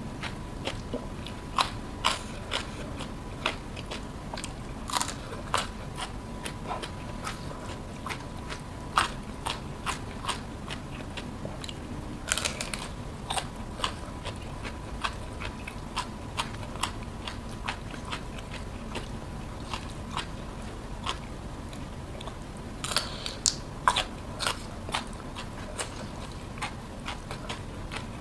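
Close-miked eating of raw green vegetables dipped in chili sambal: crisp bites and chewing with wet mouth clicks. There are louder crunch clusters about twelve seconds in and again around twenty-three seconds.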